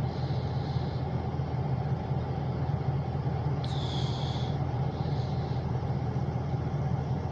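A moving car's engine and road noise heard from inside the car: a steady low rumble, with a brief high-pitched tone about halfway through.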